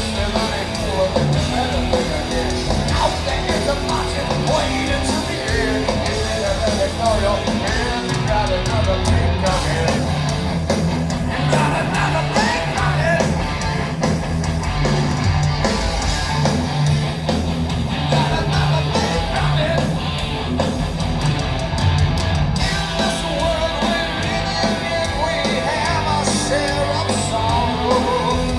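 Heavy metal band playing live: distorted electric guitars over bass and drums in a continuous loud wall of sound, with a wavering lead line in the middle range.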